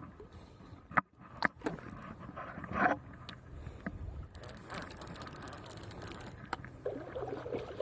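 A baitcasting reel being cranked, a soft whirring hiss as line is wound in, with a few sharp handling knocks about a second in.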